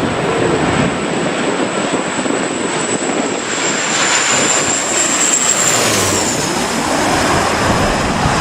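Airplane engines running loud over a rush of noise, with a thin high whine that drops in pitch about six seconds in.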